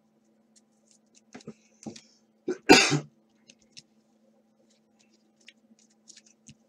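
A man coughs once, about two and a half seconds in, while coming down with a cold. Around it are faint clicks and rustles of trading cards and plastic card holders being handled, over a low steady hum.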